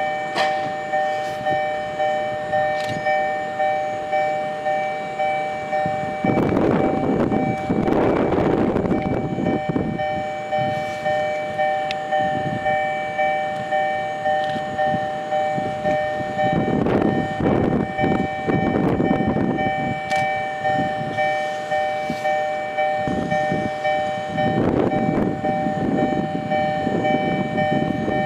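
Japanese railway level-crossing alarm ringing in two tones, about one strike a second. Three stretches of rumbling from slow-moving electric car No. 120 swell over it for a few seconds each.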